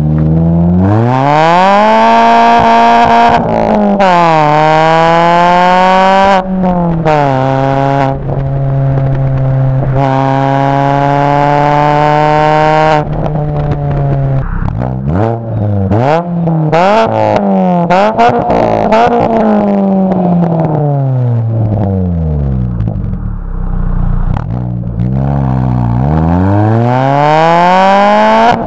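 2006 Mini Cooper's four-cylinder engine running through catless Megan Racing headers and a Megan Racing cat-back exhaust, accelerating with the pitch climbing and then dropping sharply at gear changes about three and a half and six seconds in. It then holds a steady pitch, varies up and down, settles low a little after twenty seconds and revs up again near the end.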